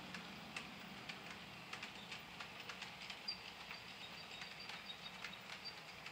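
HO-scale model freight train rolling on sectional track: faint, irregular light clicking of wheels over rail joints, several clicks a second, with a few brief faint high squeaks.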